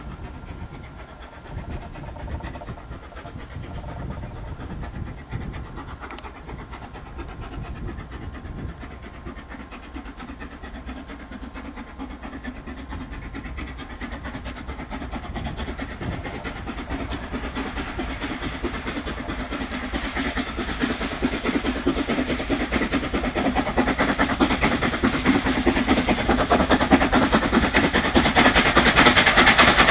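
Steam locomotive hauling a passenger train, working steam as it approaches. Its exhaust and the wheels on the rails grow steadily louder, loudest near the end as it draws close.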